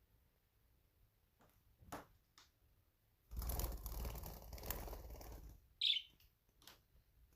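About two seconds of rustling, like fluttering wings or a bird moving against something, followed by a single short, high budgie chirp near the end.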